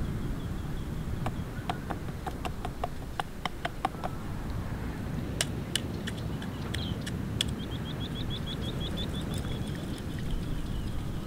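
A knife chopping the spines off a sea urchin: a run of sharp clicks and snaps, several a second, with a few louder cracks in the middle. Later a bird gives a fast run of high chirps.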